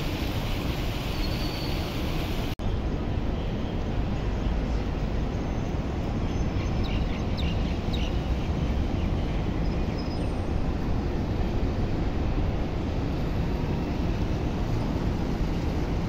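Outdoor city street ambience: a steady rumble of traffic and wind noise, cut off for a split second about two and a half seconds in by an edit, then carrying on unchanged.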